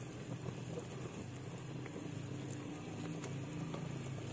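Thick ground tomato, onion, garlic and ginger paste frying in oil in a kadai: a soft, steady bubbling sizzle.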